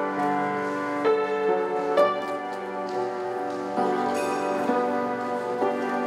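Soft instrumental music led by piano: sustained chords with new notes coming in every second or so.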